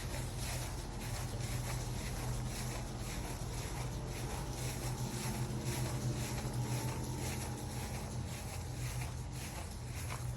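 Footsteps crunching along outdoors as someone walks, about two steps a second, over a steady low hum.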